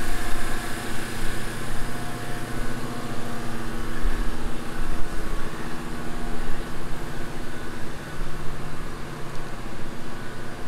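Steady engine drone: a 1984 Chevy K10's small-block V8 idling as it warms up, together with a portable generator running.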